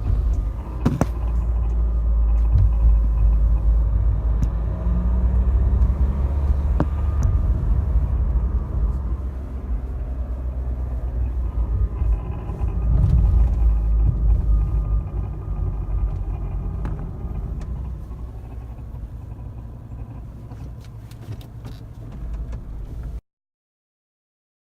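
Renault Kangoo 3 van with its 1.5 dCi four-cylinder diesel running: a heavy low rumble that swells and eases, with a few faint clicks, cutting off suddenly near the end. This is the annoying noise that the owner traces to the crankshaft pulley scraping a plastic cover that had come off its clips.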